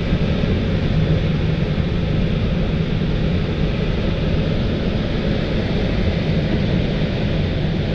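Steady rush of airflow in the cockpit of an L-23 Blaník glider in flight, an even noise that stays heaviest in the low range.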